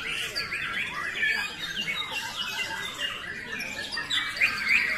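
Several caged white-rumped shamas (murai batu) singing at once in a song contest: a dense, unbroken tangle of quick whistled phrases and chatter.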